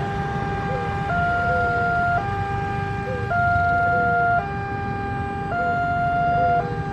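Automatic railway level-crossing warning siren, newly repaired, sounding a two-tone alternation that switches between a higher and a lower tone about once a second, over a low rumble.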